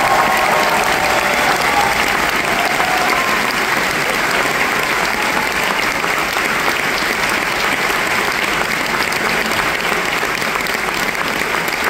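Theatre audience applauding steadily, with a few voices calling out in the first seconds.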